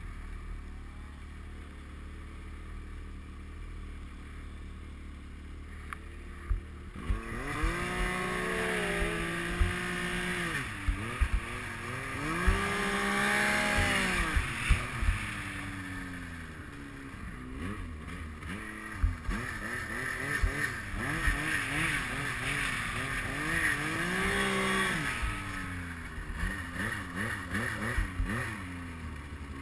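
Yamaha Nytro X-Ride snowmobile's four-stroke three-cylinder engine, heard from the rider's helmet. It runs steadily at low speed at first, then from about seven seconds in revs up and down again and again as the sled is ridden through snow, with scattered thumps and a hiss of wind.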